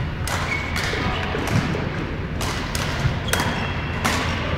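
Badminton doubles rally: racket strikes on the shuttlecock and players' footsteps on a wooden sports-hall floor, heard as a series of sharp knocks about every half second to a second, over a steady low hum.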